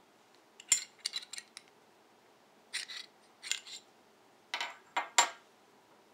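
Metal parts of a semi-automatic handgun clicking and clacking as it is stripped further down. Three short clusters of sharp clicks about two seconds apart.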